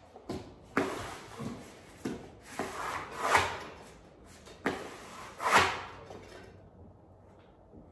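Vinyl wallpaper being rubbed and smoothed by hand against a rounded wall corner: a series of rubbing strokes, the longest and loudest about three and five and a half seconds in.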